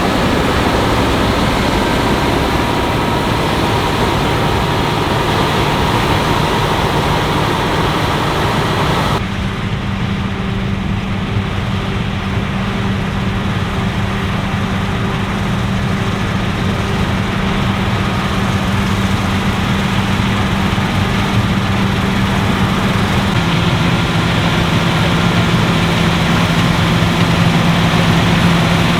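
Claas Lexion 770TT combine harvester running in the field, a loud, continuous engine and machinery noise. About nine seconds in the sound changes suddenly to a steadier engine hum, whose pitch drops slightly a little after twenty seconds.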